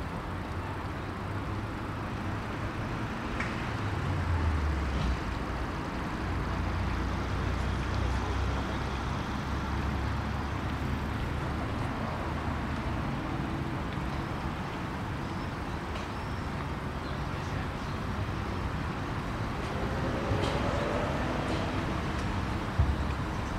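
Steady rolling and wind noise from a bicycle moving along a paved path, with road traffic in the background. A single sharp knock comes near the end.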